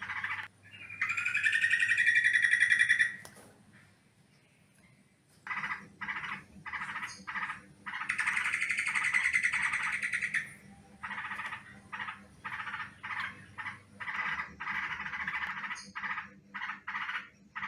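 Yellow-vented bulbul (trucukan) calling: a long, loud, harsh chattering call, a pause of about two seconds, then a run of short clipped notes, another long chatter, and more short notes in quick succession. It is a lure recording of the kind used to draw wild bulbuls to a trap.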